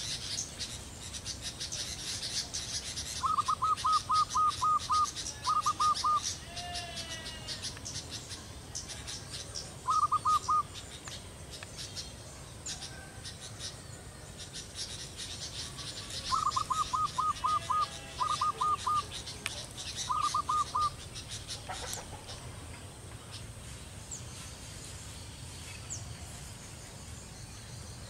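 Zebra dove (perkutut) cooing in rapid runs of short clipped notes: a run of about seven, then a shorter run of three, repeated in three bouts before it falls quiet near the end. Faint high chirps of small birds sound throughout.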